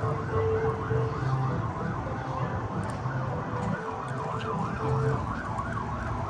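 A siren sounding a fast yelp, its pitch rising and falling about three to four times a second.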